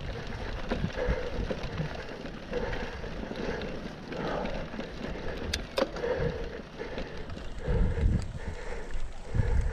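Mountain bike riding over a grass-and-dirt trail: tyres rolling with a steady rumble and wind on the microphone, a couple of sharp clicks from the bike around the middle, and the rider's breathing rising and falling about once a second.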